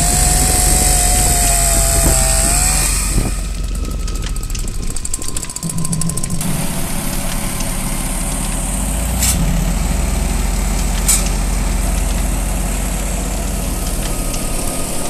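A chainsaw running at high revs as it cuts through a log, its pitch wavering. About six seconds in it gives way to the steady run of a petrol wood chipper's engine, with two sharp clicks a couple of seconds apart.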